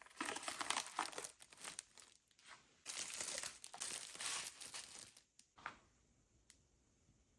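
Plastic crinkling and rustling in close, uneven bursts as treats are handled and set into Easter baskets. It stops about five seconds in, and one faint click follows.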